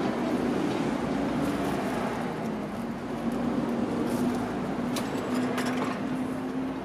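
A motor vehicle's engine running close by with a steady hum over street noise, and a couple of sharp clicks about five seconds in.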